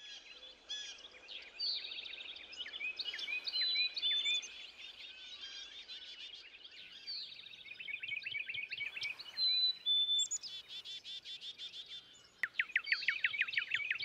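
Several songbirds singing at once: overlapping high chirps, trills and short whistled notes. Near the end a single click, then a fast run of downward-sweeping chirps.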